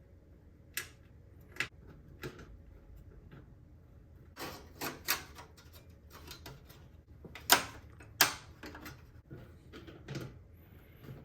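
Irregular clicks and knocks of small hard parts being handled in a computer tower case while motherboard standoffs are fitted, with the sharpest knock about halfway through.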